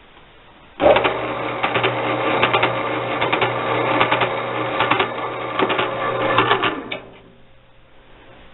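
Harbor Freight 9x20 lathe running briefly with its change-gear train, including a plastic gear, turning: a loud irregular clatter and rattle of gear teeth over a steady motor hum, starting about a second in and stopping abruptly near the end. The noise is the sign of misaligned, loosely mounted gears, with the retainer on the plastic gear slipped out and parts near the reverse tumbler jumping around.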